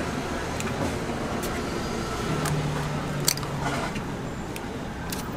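Eggs cracked by hand onto a hot griddle pan: several sharp shell cracks and soft squishes, the loudest crack about three seconds in, over a steady background hiss.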